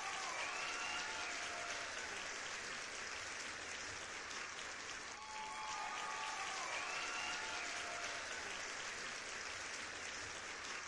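Crowd applauding steadily, with a couple of faint rising-and-falling calls over it, about a second in and again about six seconds in.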